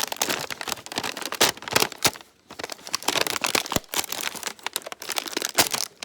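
Packaging crinkling and crackling as it is pulled and worked open by hand, with a brief pause about two seconds in.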